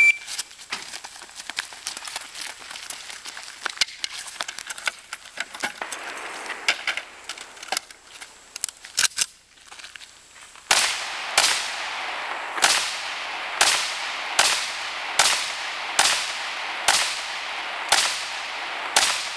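Galil AR semi-automatic rifle fired in an IPSC rifle stage. The first half holds scattered fainter sharp cracks. From about halfway there is a steady string of loud single shots, roughly one every 0.8 seconds, each with an echoing tail.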